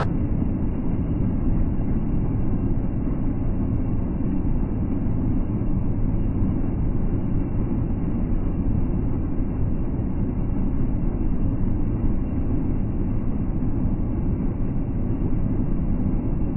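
Steady low rumble of a semi truck's engine and road noise inside the cab at highway speed, heard through a dash cam's microphone, which makes it sound muffled.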